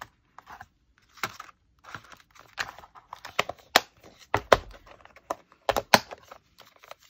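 Hands rummaging through packets of stamps: rustling and crinkling handling noise broken by a string of sharp clicks and taps, the loudest coming in a cluster through the middle and latter part.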